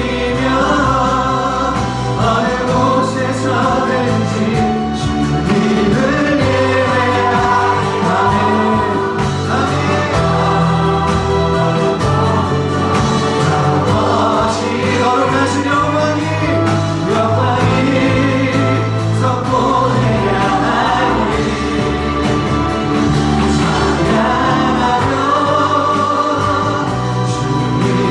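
Group of voices singing a Korean worship song over steady instrumental accompaniment with sustained bass notes.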